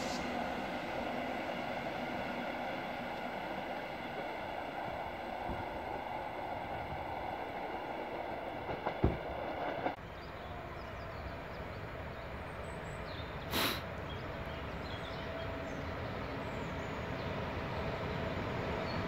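A train running: a steady rumble with a set of steady humming tones that cut off about halfway through, just after a sharp click. A short burst of noise follows a few seconds later.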